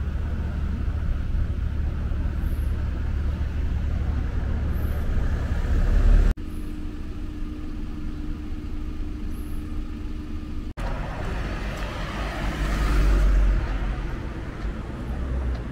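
Road traffic noise with a steady low rumble. It changes abruptly twice, and in the middle stretch a steady hum runs. A car passes near the end, its noise swelling and fading.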